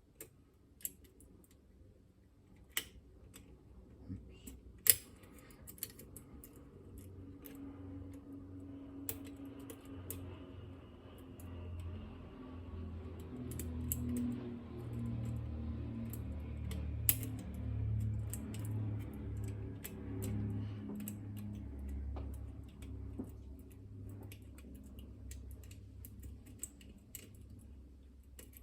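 Small, sharp metallic clicks and taps, irregular and spaced seconds apart, from lock picks and tension tool working the levers of a Chubb Detector lever lock. A low rumbling hum swells up through the middle and fades again near the end.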